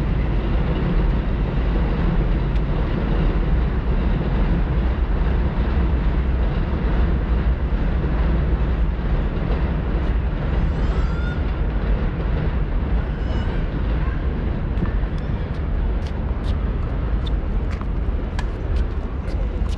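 Wind buffeting the microphone, a steady low rumble, with a couple of brief high chirps partway through and a run of faint sharp ticks near the end.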